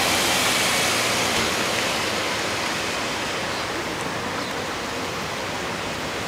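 Steady road hiss of a car's tyres on the pavement as it drives past, easing off slightly over the first few seconds as it moves away.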